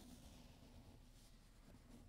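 Near silence, with faint rustling of a crumpled white paper tissue being scrunched and twisted by hand.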